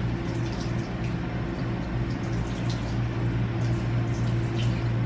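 Kitchen tap running as raw salmon is rinsed under it, the water splashing with a few small high drips and splashes, over a steady low hum.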